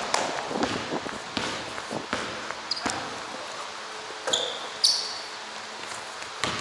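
Basketball bouncing on a hardwood gym floor, a knock every second or so at an uneven pace, with short high sneaker squeaks a few times in the second half.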